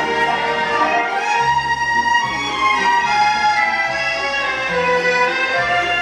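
Accordion and guitar playing the instrumental melody of a slow waltz, with no singing; a bass line steps from note to note underneath.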